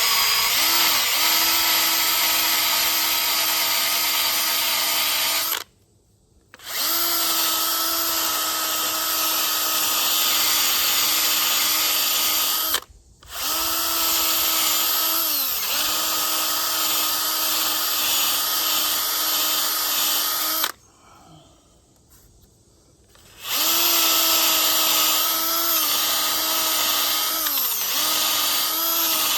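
Electric drill spinning a Velcro-backed grinding pad against the curb-rashed edge of a wheel rim, sanding the damage smooth: a steady motor whine that sags in pitch now and then as the pad is pressed in. The drill stops three times, the last pause the longest, about three seconds.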